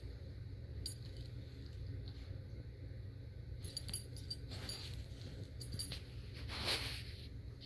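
Faint metallic jingling of a pet's collar tags in a few short clinks as the animals shift about, over a low steady hum, with a brief soft rush of noise near the end.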